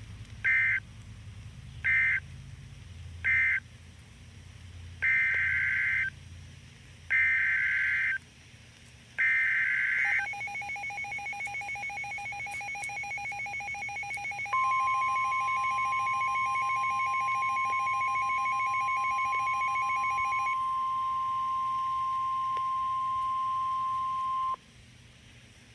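NOAA Weather Radio SAME data bursts: three short end-of-message bursts, then three longer header bursts for the next warning, each a harsh buzzy screech. A fast-pulsing two-pitch beeping starts at about ten seconds. About four seconds later the steady 1050 Hz warning alarm tone joins it, sounds for about ten seconds and cuts off suddenly.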